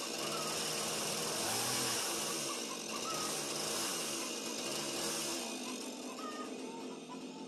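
Chainsaw engine running in the air, revved up and down for several seconds, then easing back to a lower idle about five seconds in.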